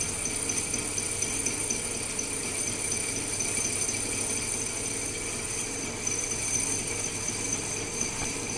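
Metal lathe running steadily: a constant hum with several steady high-pitched tones from the motor and gearing.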